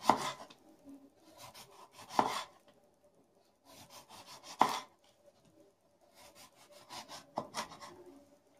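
Kitchen knife slicing a lemon into rounds on a wooden cutting board: each slice is a few quick sawing strokes ending in a knock of the blade on the board, four times.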